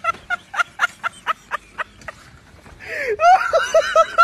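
High-pitched laughter in quick rhythmic bursts that tails off about one and a half seconds in, then breaks out again, faster and louder, about three seconds in.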